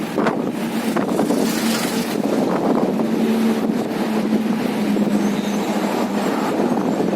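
Combine harvester's engine running steadily, a continuous drone with a held hum, with some wind on the microphone.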